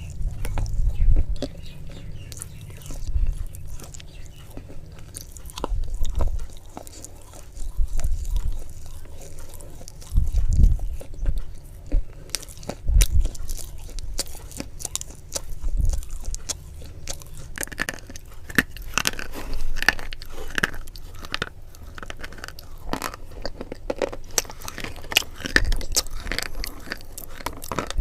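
Close-miked ASMR eating: crunchy bites and chewing, with a run of sharp crackles and low thuds every couple of seconds, busier in the last third.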